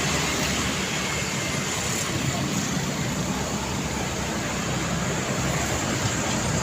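Steady road traffic noise: the engine and tyre sound of passing vehicles, with no horn sounding.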